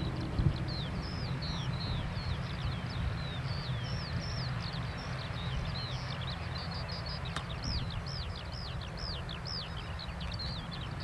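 A flock of small birds chirping busily, many short notes each sliding downward in pitch, several a second, over a steady low rumble.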